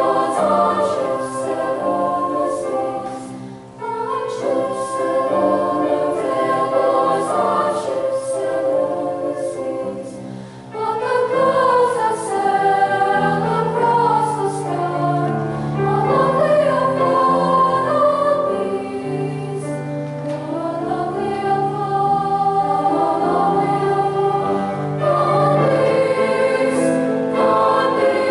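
Junior high school choir singing in harmony, phrase after phrase, with brief breaks between phrases about four and eleven seconds in.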